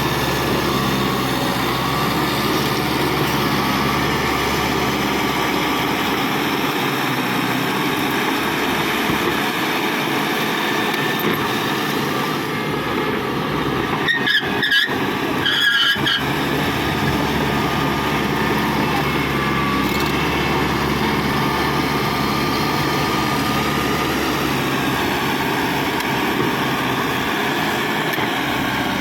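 Cat D5K XL crawler bulldozer working, its diesel engine running steadily under load. About halfway through comes a brief cluster of sharp knocks with short squeals.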